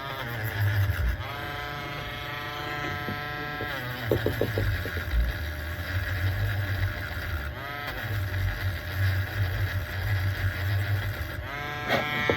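A small motor's whine that rises in pitch as it starts, holds steady for about two and a half seconds and cuts off, followed by a few light clicks, with two shorter whines later, one near the middle and one near the end; a low hum comes and goes underneath.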